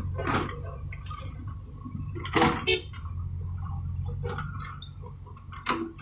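JCB backhoe loader's diesel engine running steadily, with a few sharp clanks of stone and bucket, two close together about two and a half seconds in and another near the end.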